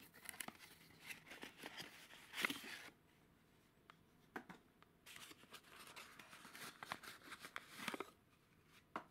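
A small cardboard valve box being handled: its flaps rustle and scrape in two spells of a few seconds each, the loudest scrape about two and a half seconds in. The glass valve is slid out of the box, with a short click near the end.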